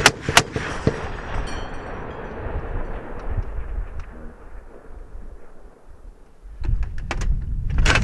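M2 .50 caliber heavy machine gun on a tripod firing: the last two shots of a burst right at the start, the report dying away over a few seconds, then a new burst of rapid shots begins near the end.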